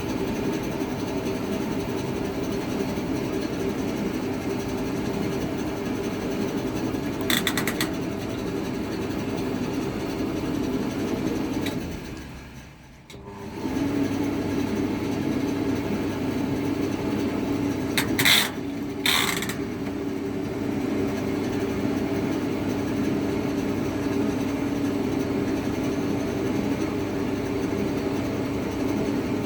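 Hotpoint TL52 machine running with a steady rumbling, rubbing noise, the noise fault its owner is showing. The sound dies away about twelve seconds in and picks up again a second or so later, and there are short hissy rasps around seven and eighteen seconds in.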